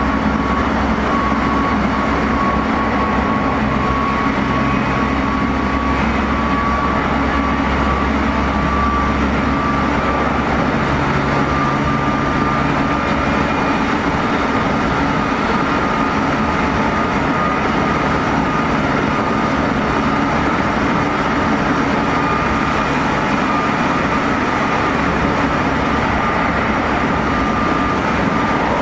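Meitetsu 3500 series electric train running at speed, heard inside the car: a steady rumble of wheels on rail and a high-pitched traction-motor whine from its Toyo Denki GTO-VVVF drive, which edges slightly up in pitch.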